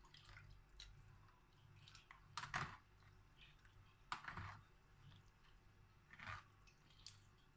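Soft wet squishes and spoon scrapes from a butterflied milkfish being rubbed with a vinegar-and-chopped-garlic marinade in a plastic tray. A few short, faint sounds a second or two apart, over a low steady hum.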